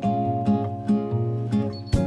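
Background music: a guitar playing plucked notes in a steady rhythm, with one sharp click near the end.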